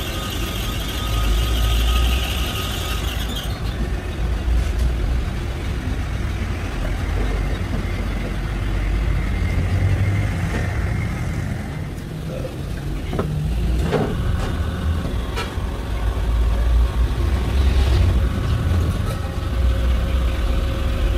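Crankshaft grinding machine running with a steady low hum. A higher hiss of grinding sounds over it for the first three seconds or so and stops abruptly, and a few sharp clicks come later.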